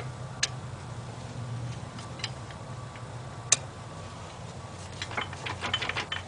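Light metallic clicks and taps of an Allen key working the screws on a lathe chuck: a few separate clicks, the sharpest about three and a half seconds in, then a quick run of clinks near the end. A low steady hum lies underneath.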